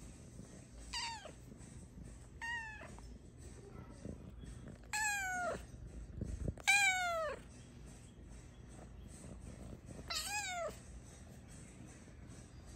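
Snow Lynx Bengal cat meowing five times, each meow falling in pitch, the fourth one the loudest.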